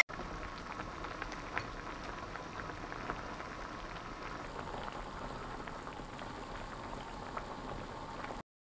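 Spicy hot-pot broth boiling hard in a shallow metal pot, a steady bubbling with many small pops. The sound cuts off suddenly near the end.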